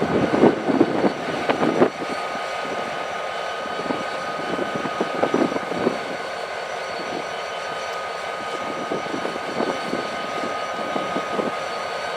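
Diesel locomotive running steadily with a constant droning hum, with irregular gusts of snowstorm wind buffeting the microphone, strongest in the first two seconds and again about five seconds in.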